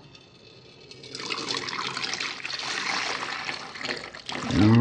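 Thin stream of liquid filling squeezed from a cut-open squishy toy trickling into a clear plastic cup, starting about a second in. Just before the end, a loud pitched sound begins.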